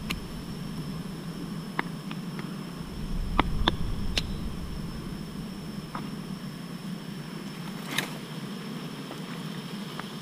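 Swarm of dwarf honey bees buzzing in a steady low hum around their disturbed comb, with a few short sharp clicks and snaps.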